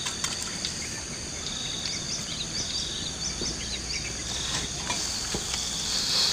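Insects droning steadily in several high-pitched bands, with short chirps repeating over them. There are a few faint clicks.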